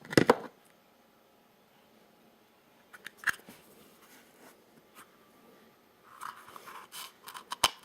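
Handling sounds of a multitool and a piece of soft plastic. A sharp scrape at the start, a single click about three seconds in, and a run of short scratching and clicking sounds near the end.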